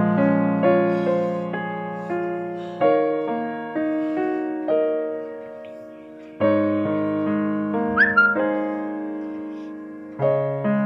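Background piano music: slow notes and chords, each struck and left to fade. A short high rising-then-falling sound comes about eight seconds in.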